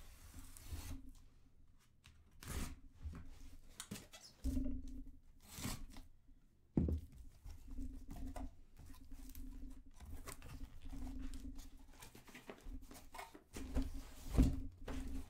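Rustling and tearing of packaging with light knocks and clicks of handling, in the way a sealed trading-card box's wrap is torn off.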